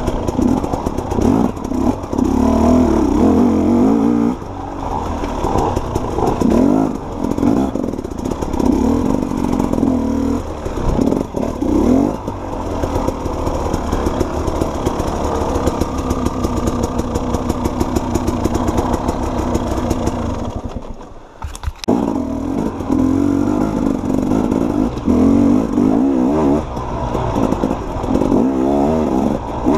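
Dirt bike engine ridden along a rough trail, its revs rising and falling with the throttle. About two-thirds of the way through the engine note drops sharply for a moment, then picks up again.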